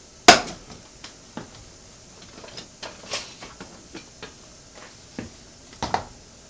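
A saucepan knocked down onto a glass-top electric stove, followed by scattered small clicks and taps over a low hiss, and a spatula tapping in the pan twice near the end.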